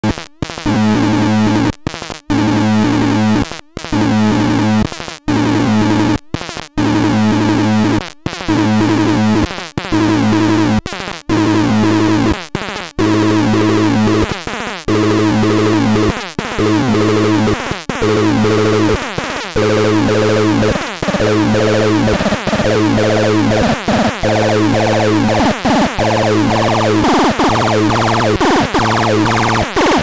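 FARANOSNORTRON BX 603, a handmade experimental synthesizer, playing a low buzzy tone chopped into a repeating pulse pattern. The pulses come faster after about ten seconds, and a harsher high noise builds near the end.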